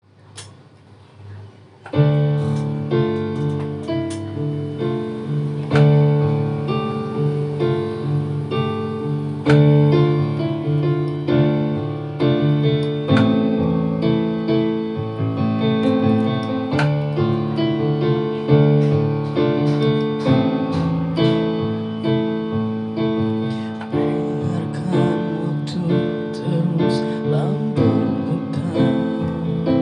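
Electronic keyboard playing a piano-voiced introduction of chords and melody, starting about two seconds in.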